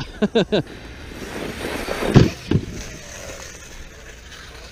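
Arrma Talion 6S RC truck's brushless motor and tyres rising as it speeds up, with two sharp thumps about two seconds in as it leaves the ground, then a fainter falling whine while it flies.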